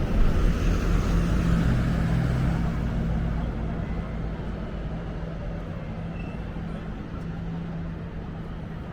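A vehicle engine running with a steady low hum, loudest at the start and fading gradually as it moves away.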